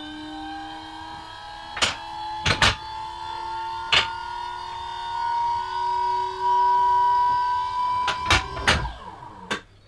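QuickJack portable car lift's electric hydraulic pump running with a steady whine that rises slowly in pitch as it raises the car, stopping near the end. Several sharp clicks come from the lift as it goes up.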